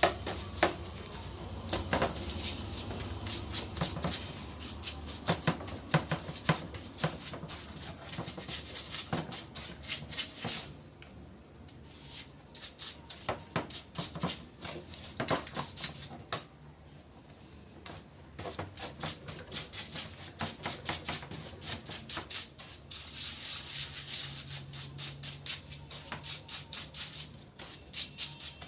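Irregular clicks, taps and light clatter of metal parts and tools being handled while a pressure-washer pump is taken apart.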